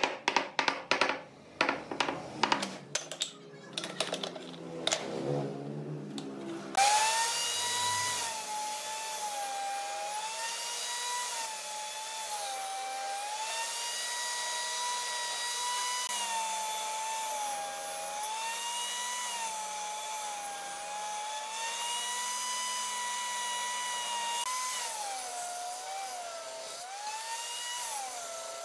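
Rapid wooden knocks as a wooden block taps the mitred joints of an octagonal wooden frame together. About seven seconds in, a table saw takes over, running with a steady whine whose pitch sags and recovers several times as the blade rips through boards.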